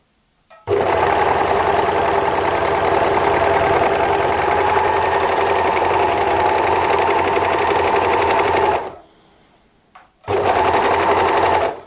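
W6 N454D overlock (serger) running as it stitches a gathering test seam on cotton, its differential feed raised. It sews steadily for about eight seconds, stops for about a second and a half, then runs again briefly near the end.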